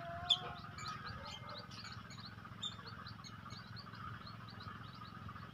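Indian palm squirrel calling: a long, steady run of short, high-pitched chirps, several a second, heard faintly.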